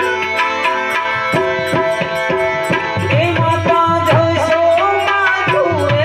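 Harmonium and tabla playing a Gujarati devotional song: held harmonium chords over a steady tabla beat. A voice sings a sliding melody line from about halfway through.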